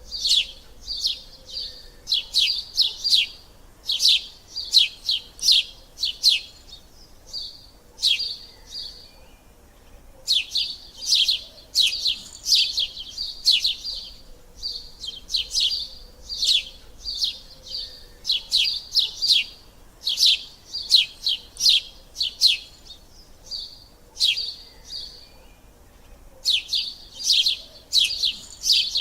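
Sparrow chirping: quick runs of short, sharp chirps, broken by brief pauses every few seconds.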